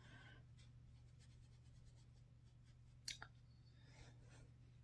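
Near silence: faint brushing of a makeup brush on the skin, with one short click about three seconds in, over a low steady hum.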